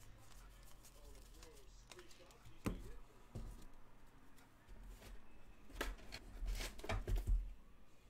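Trading cards and card packs being handled on a tabletop: scattered taps, rustles and knocks, with the loudest cluster of knocks a little before the end.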